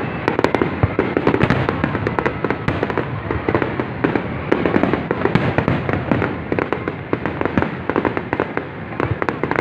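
Aerial fireworks display: many shells bursting and crackling, with sharp bangs and pops overlapping in a dense, unbroken barrage.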